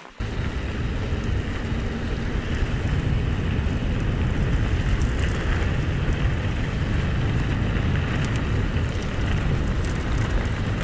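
Wind buffeting a GoPro's microphone over the crunch of mountain bike tyres on a gravel forest track, with small clicks of loose stones; the noise comes in abruptly just after the start and stays loud and steady.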